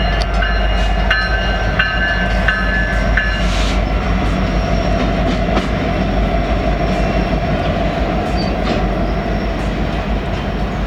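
CN SD70ACE diesel locomotive hauling a train past at close range. Its EMD 710 two-stroke diesel gives a steady rumble, and the wheels click over the rails. A bell-like tone rings a few times in the first three seconds.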